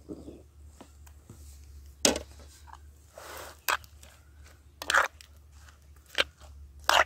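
A steel spoon stirring raw banana slices in turmeric-and-salt water in a clay bowl: about five sharp clinks and knocks of the spoon and slices against the bowl, with a soft scraping rustle in between.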